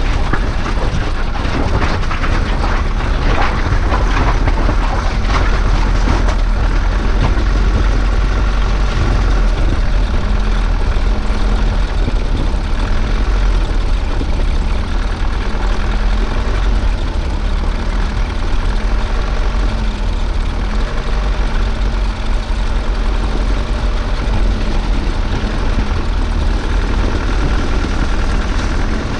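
SsangYong Actyon Sports ute driving over a gravel riverbed: a steady engine drone under a heavy low rumble of tyres on stones. There is a stretch of denser crunching and crackling a few seconds in.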